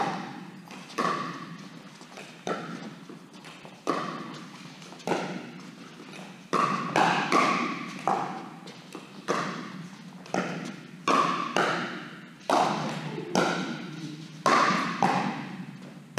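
Pickleball rally: paddles striking a hard plastic ball in sharp pops about once a second, sometimes two in quick succession, echoing in a large indoor hall.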